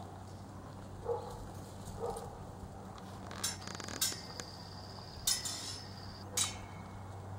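A few sharp metallic clinks from a saddled horse's tack as it moves at a walk, spread over the second half, one of them ringing on for over a second. A steady low hum runs under them.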